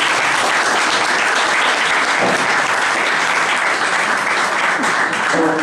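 Audience applauding, a dense steady clapping that holds at full strength.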